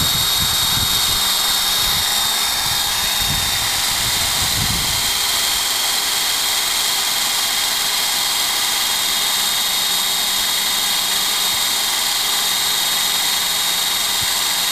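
Corded electric drill running at a steady speed with a high whine as it bores a tap hole into a maple trunk for sap.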